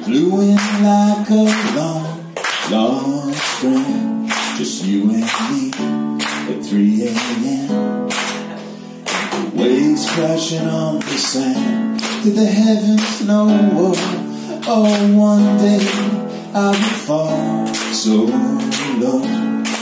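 Acoustic guitar strummed in a steady rhythm, with a man singing a live song over it.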